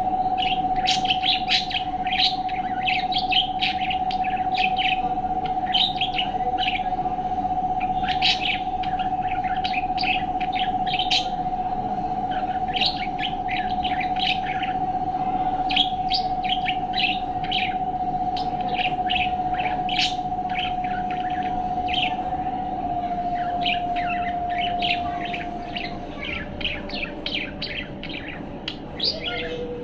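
A budgerigar chattering and warbling in quick runs of high chirps throughout. Underneath runs a steady tone that drops in pitch a few times near the end.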